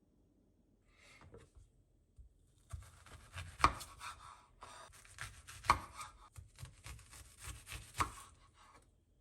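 A knife cutting food on a cutting board: a run of crisp scraping and crunching strokes with three sharp, louder knocks of the blade on the board about two seconds apart.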